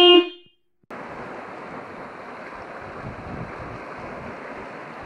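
Steady noise of wind and sea surf washing on a rocky shoreline, with gusts of wind on the microphone. It starts about a second in, after a brief pitched tone that stops half a second in.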